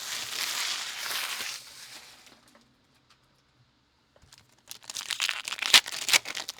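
Trading card pack wrapper crinkling and tearing for about two seconds as a pack is opened. After a short pause comes a second burst of sharp crinkles and rustles as the wrapper and cards are handled.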